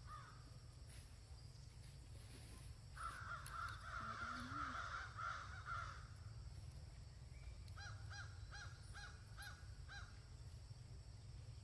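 Harsh animal calls: a long run of overlapping calls a few seconds in, then a quick series of about seven short, caw-like calls, over a low steady rumble.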